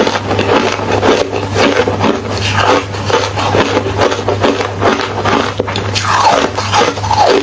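Close-up crunching and chewing of hollow refrozen ice: a dense, unbroken run of sharp crackling crunches.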